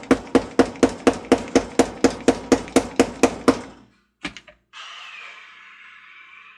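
Small hammer rapidly tapping a tight press-fit gear down onto its shaft, about four even strikes a second for three and a half seconds, then two lighter knocks. A short hissing sound follows near the end.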